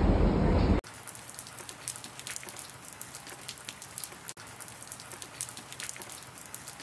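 A metro train running, heard from inside the car, with a loud low rumble that cuts off abruptly under a second in. Then light rain on a wet pavement: a soft steady hiss with many scattered drop ticks.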